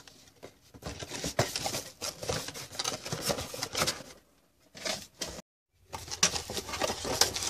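Cardboard box with a foam insert and bubble-wrapped contents being opened and handled: irregular rustling, scraping and light taps of cardboard and packaging.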